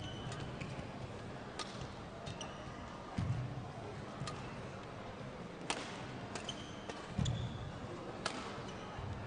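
Badminton rally: sharp cracks of rackets striking the shuttlecock about once every second or so, short squeaks of court shoes on the court mat, and a couple of heavy thuds from lunging footsteps, about three seconds in and again near seven seconds.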